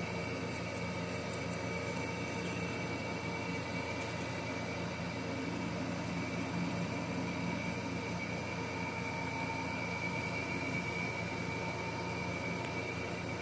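A small electric motor running steadily with a constant whine. A few faint high ticks about a second in.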